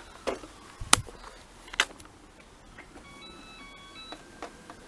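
A few sharp knocks and clicks, the loudest about a second in, then, about three seconds in, a short electronic tune of quick beeps at several pitches.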